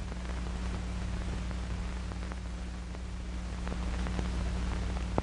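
Soundtrack noise of an old film print: a low steady hum under even hiss, with scattered crackling ticks and one sharp pop near the end.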